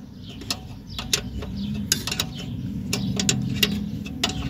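Open-end wrench tightening a small fine-threaded bolt on a rear drum-brake backing plate: a series of irregular sharp metal clicks as the wrench is worked and repositioned, over a steady low hum.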